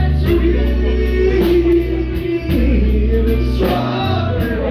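Music with a singing voice over held bass notes.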